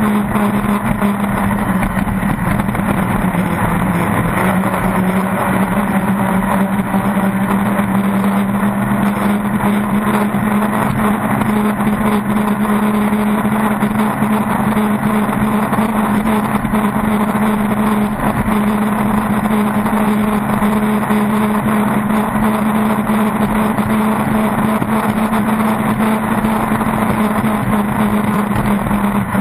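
Pro Stock circle race boat's inboard racing engine running at steady high speed, its pitch holding even, over a constant rush of water and air, heard from a camera on the boat's deck.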